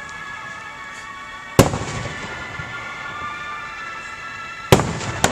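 Fireworks shells bursting: one sharp bang about one and a half seconds in, then two more in quick succession near the end, each trailing off in an echo.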